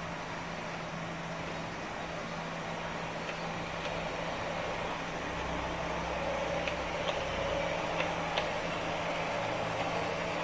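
HO-scale KiHa 58 model diesel railcar running on its track, its motor and wheels giving a steady hum and rumble that grows gradually louder as it pulls away from the station, with scattered light clicks.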